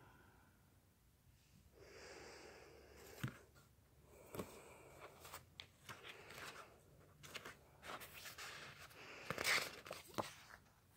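Paper and sticker sheets being handled: faint rustling and crinkling with scattered small clicks and taps, the loudest flurry about nine and a half seconds in.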